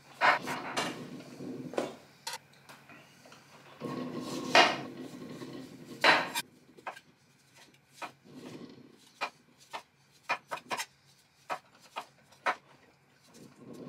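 Chef's knife cutting the peel off a root vegetable on a wooden cutting board: rasping slicing strokes, then a series of short sharp knife taps against the board through the second half.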